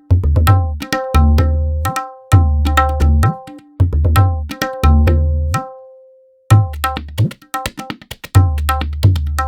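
Sampled tabla from a virtual instrument library playing a rhythmic pattern: sharp, ringing treble-drum strokes over deep bass-drum strokes that bend in pitch. The pattern breaks off briefly about six seconds in, then starts again.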